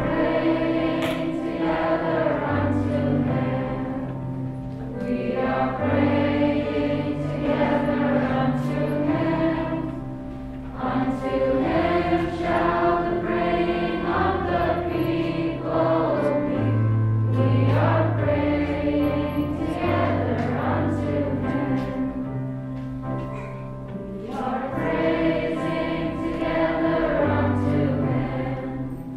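Children's and youth Sunday school choir singing a song together in unison over instrumental accompaniment with held bass notes that change every second or two.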